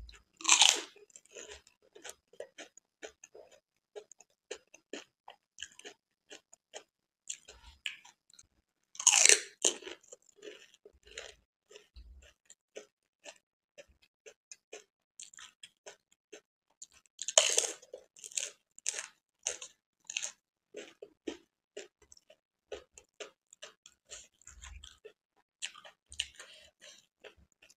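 Pani puri (golgappe) being eaten whole: three loud crunches as the crisp water-filled puri shells are bitten, about eight seconds apart, each followed by a run of quick wet chewing clicks.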